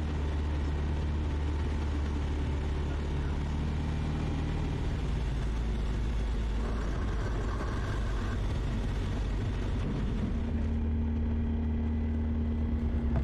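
Kitfox light aircraft's engine and propeller droning steadily from inside the cockpit during a low pass, with rushing air noise. The engine note shifts about five seconds in and changes again around ten seconds, when the hiss of the airflow drops.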